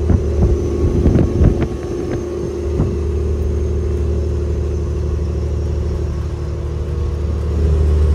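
Old Detroit diesel engine of a semi truck droning steadily at highway speed, heard from inside the cab. A few sharp clicks and rattles come in the first few seconds, and the sound grows louder near the end.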